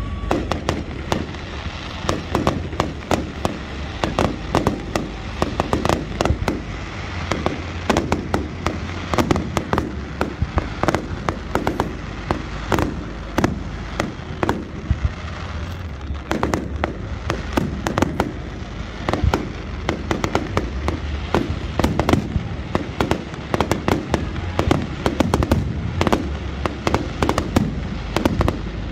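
Aerial firework shells bursting in a dense, continuous barrage: a rapid, unbroken string of sharp bangs, several a second.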